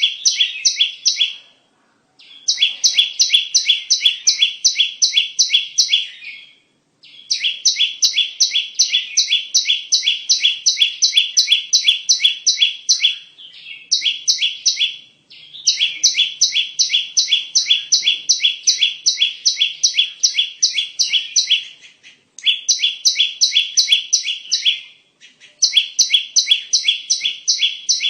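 Perenjak (prinia) calling: fast runs of sharp, evenly repeated chip notes, about four or five a second, in phrases a few seconds long with brief pauses between them, as used for a bird-lure recording.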